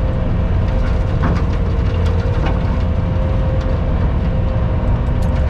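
Heavy engine running steadily under load, mostly low rumble with a constant whine held over it and scattered clicks and rattles.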